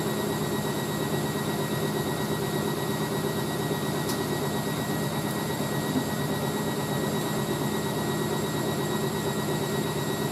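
Hoover A3060 Electronic 1100 washing machine spinning a load of towels, its motor and drum running steadily at speed.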